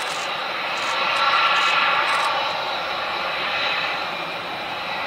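The twin Pratt & Whitney F119 turbofans of a Lockheed Martin F-22A Raptor running at taxi power as the jet rolls slowly past. It is a steady jet rush with a thin high whine, swelling a little about a second in and easing off toward the end.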